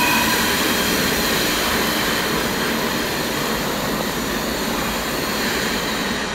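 Container train rolling past, a steady noise of wheels on rail that slowly gets quieter. A couple of high steady tones fade out just after the start.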